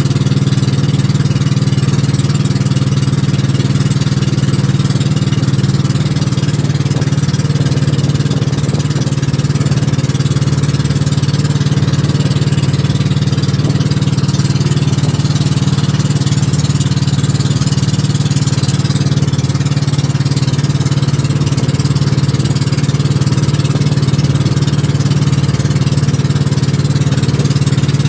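Engine of a motorised outrigger boat (bangka) running at a steady cruising speed: a constant low drone with a steady hiss above it.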